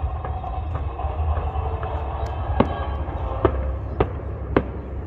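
Distant fireworks shells bursting, with a few faint pops followed by four sharper bangs about half a second to a second apart in the second half, over a steady low rumble.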